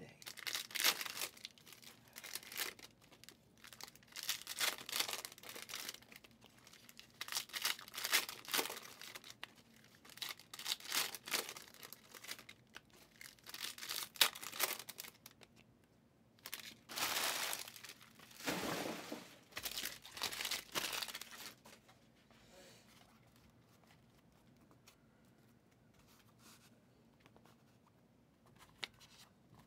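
Foil Prizm football card pack wrappers being torn open and crinkled, in repeated bursts of tearing and rustling for about twenty seconds, loudest near the end of that stretch. After that only faint handling is heard.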